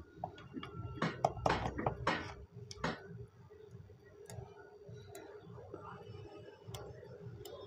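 Insulated copper lead wires on a ceiling fan stator being handled: a few short rustles and light clicks in the first three seconds, then faint scattered ticks over a faint steady hum.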